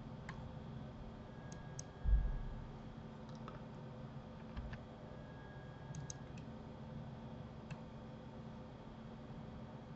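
Scattered sharp clicks of a computer mouse and keyboard in use, a dozen or so at uneven gaps, with one dull low thump about two seconds in. Underneath is a faint steady hum.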